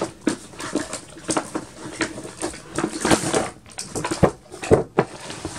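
Cardboard Play-Doh kit box being opened and handled: irregular rustling, scraping and sharp knocks.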